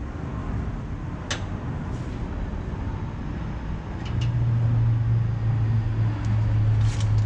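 Low steady mechanical rumble with a single click about a second in; about four seconds in, a louder steady low hum starts and keeps going.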